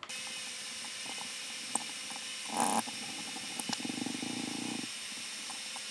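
Steady background hiss with a few faint clicks, a short rustle about two and a half seconds in, and a low pulsing buzz for about a second around the four-second mark.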